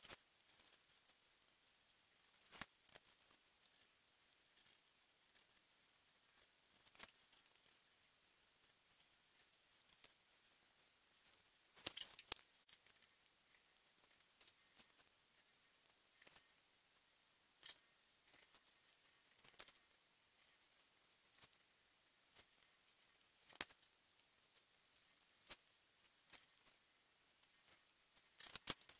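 Faint pencil scratching with scattered light ticks and taps as a pencil traces around cut-out letters laid on a wooden board.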